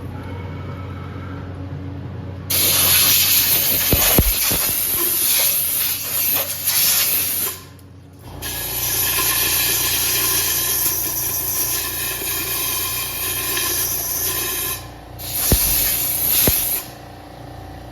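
Machining noise while drilling the small fuse hole in a steel cannon barrel: a loud hiss in three stretches, about five seconds, six seconds, then a second long, with a steady low machine hum under the second half.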